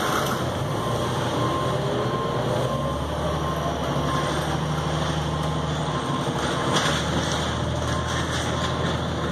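Neoplan AN460A articulated bus heard from inside while under way: its engine and drivetrain running. A whine rises in pitch over the first couple of seconds, then the sound settles into a steady low hum.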